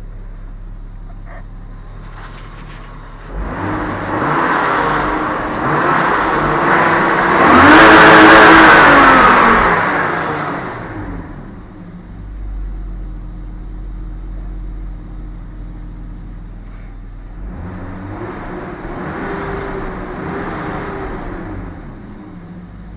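BMW E34 engine revved twice from idle: a long climb to high revs that falls back to idle, then a shorter, lighter rev. It pulls up freely and runs normally, the freshly cleaned fuel pump no longer humming.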